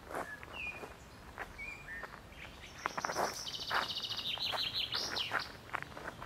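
Birdsong: a few short whistled notes, then a fast trill of repeated high notes through the middle. Scattered scuffs and soft knocks of footsteps on gravel.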